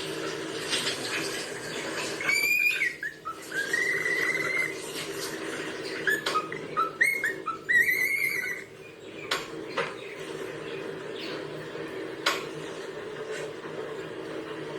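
Cockatiel whistling: several short phrases of gliding whistled notes in the first nine seconds, over a steady hum, with a few sharp clicks later on.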